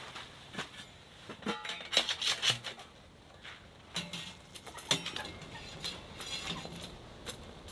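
Objects being handled: a series of clicks and knocks, some with a short metallic ring, over light rustling, loudest about two and five seconds in.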